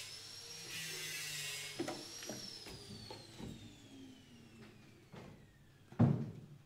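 A machine's high whine that falls steadily in pitch for a few seconds, as a motor winding down, with scattered small knocks and a single thump about six seconds in.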